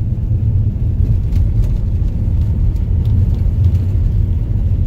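Steady low rumble of a car driving slowly on a snowy road, heard from inside the cabin.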